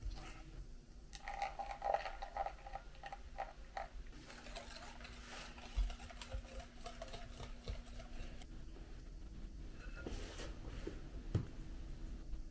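Cake batter being stirred in a glass mixing bowl: a utensil scraping and knocking against the glass in irregular strokes, with a sharper knock near the end.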